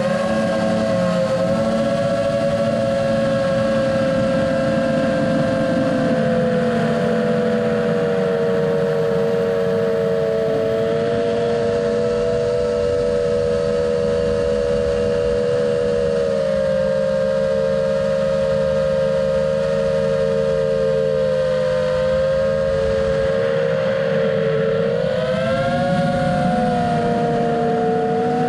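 FPV quadcopter's electric motors and propellers whining steadily over a rush of air, with the pitch drifting slowly with throttle. Near the end the whine rises and wavers as the throttle changes.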